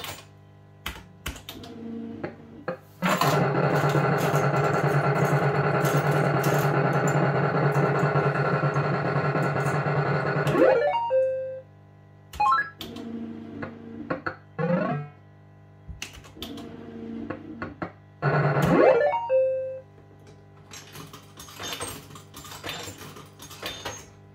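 Fruit machine electronic sound effects: a loud, steady synthesised sound for about eight seconds ending in a quick glide and a beep, then short beeps and two quick rising sweeps, with scattered clicks near the start and end.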